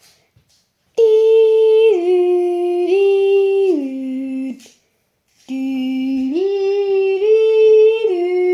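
A voice humming a slow tune in two phrases with a short pause between. The held notes step down and up between a few pitches.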